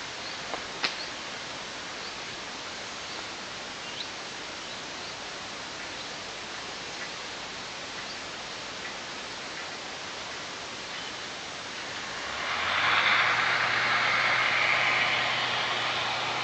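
Steady outdoor hiss with a few faint clicks. About twelve seconds in, a motor comes up louder, its low hum rising briefly and then holding steady.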